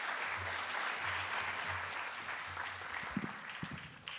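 Audience applauding, dying away near the end, with a few low knocks in the last second.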